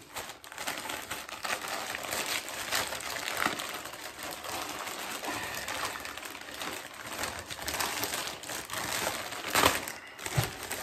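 Plastic mailer bag and plastic packaging crinkling and rustling as hands dig through it, with a louder crackle near the end.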